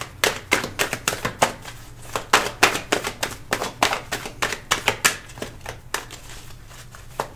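A deck of tarot cards shuffled in the hands: a quick, irregular run of crisp card slaps and clicks, about five a second, thinning out in the last second or so.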